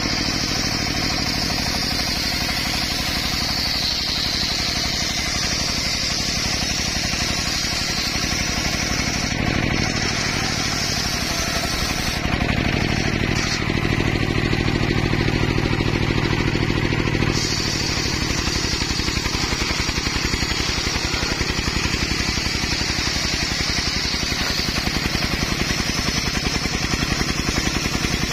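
Engine-driven circular saw bench ripping timber: the engine runs steadily under load while the blade cuts along the wood with a high hiss. The cutting hiss drops out for a few seconds about midway, then returns.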